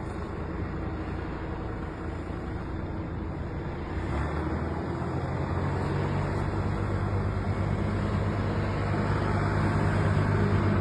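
A motor vehicle running with a steady low engine hum over road noise. The hum grows louder about four seconds in.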